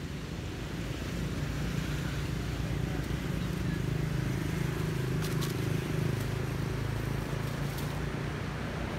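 Low, steady engine hum of a nearby motor vehicle, growing louder after about a second and easing off near the end, with a few faint ticks midway.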